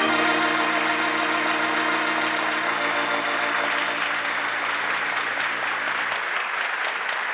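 Organ holding the closing chord of a radio-drama music cue, cutting off about six seconds in, while applause swells.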